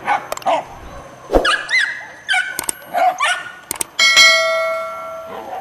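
Hunting dogs yelping and barking in a run of short, excited calls. About four seconds in, a loud ringing tone sets in and slowly fades, like a struck bell.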